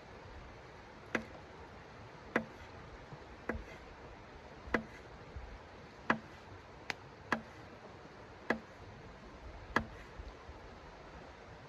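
A series of short, sharp knocks or taps, one about every second and a quarter, over a steady low hiss.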